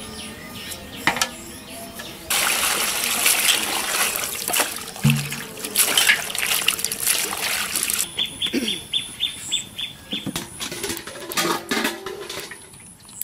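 Water splashing and sloshing as peeled potato chunks are washed by hand in an aluminium basin, loudest for a few seconds after the first couple of seconds.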